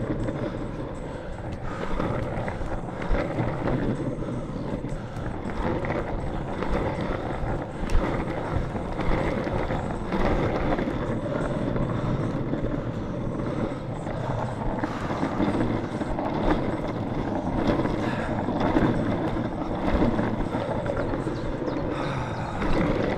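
Longboard wheels rolling over pavement, a steady rumble that rises and falls with the surface, with a sharp knock about eight seconds in.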